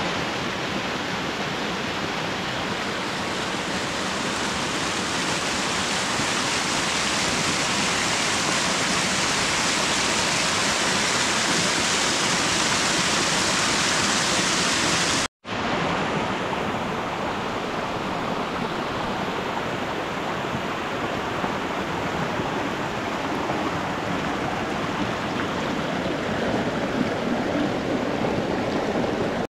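Mountain stream rushing over small rocky cascades and waterfalls: a steady, loud rush of water. It breaks off for an instant about halfway, then carries on sounding a little duller.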